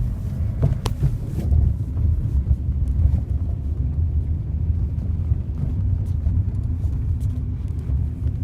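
Lada Priora on the move, heard from inside the cabin: a steady low road and tyre rumble with a few faint clicks. The owner is trying to record a gurgling knock from the rear right suspension, but he finds it is not audible on the recording.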